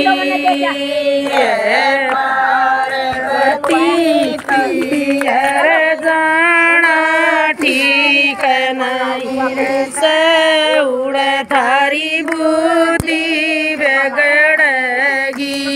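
Group of women singing a Haryanvi devotional bhajan to Shiva and Parvati, their voices holding long wavering notes.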